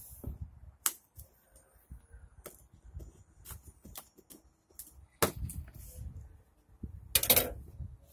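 A tall cardboard box being handled: scattered sharp knocks and taps on the cardboard, then a longer, louder rough scrape about seven seconds in, with wind rumbling low on the microphone.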